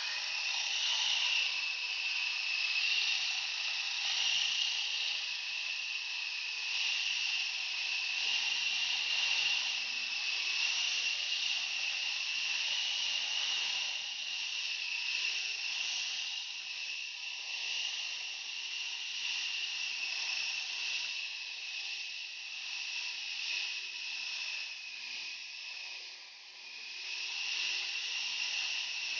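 Toy RC helicopter's twin stacked rotors and small electric motors running in flight: a steady high-pitched whine with an airy hiss, dipping briefly near the end.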